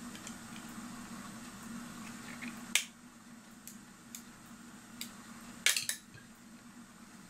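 Small sharp clicks and taps of metal clock parts being handled as the clock's hands are worked off with a hand-removing tool: one sharp click about three seconds in, after which a low steady hum stops, and a quick cluster of clicks a few seconds later.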